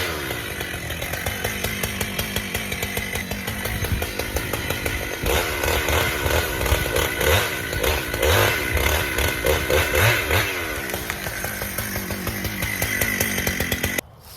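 Husqvarna chainsaw running and cutting into a red maple trunk, its engine pitch rising and falling under load, then shutting off just before the end.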